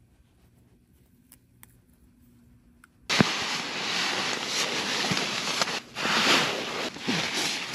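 Down sleeping bag's nylon shell and stuff sack rustling and swishing in uneven swells as the bag is stuffed into the sack by hand. It starts suddenly about three seconds in, after near-quiet with a few faint ticks.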